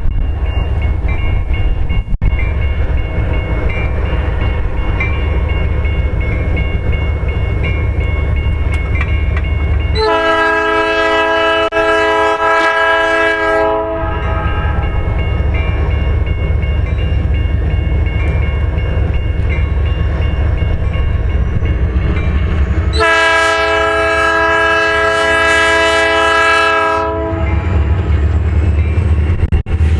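Diesel freight locomotive horn sounding two long blasts, each about four seconds, about ten seconds and about twenty-three seconds in, over the steady low rumble of the train.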